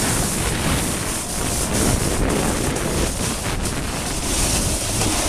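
Wind rushing over the microphone while snowboarding, mixed with the board sliding and scraping over snow: a steady rough noise with a few short scrapes.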